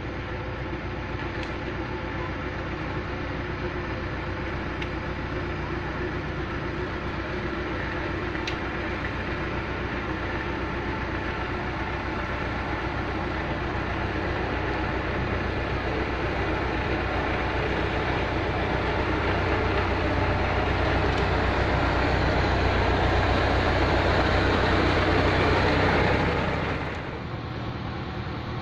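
Diesel engine of heavy road-paving machinery running steadily, growing slowly louder before dropping off sharply near the end.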